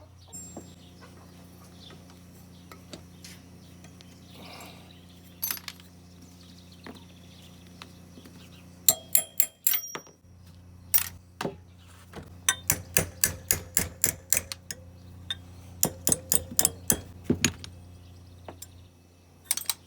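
Hand tools knocking and clinking on metal engine parts at a bench vise: a few scattered taps, then from about halfway quick runs of sharp strikes, several a second. A steady low hum runs underneath.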